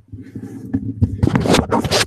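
Handling noise on a headset's boom microphone: rubbing, brushing and small knocks as the headset is lifted over the head, growing louder in the second half.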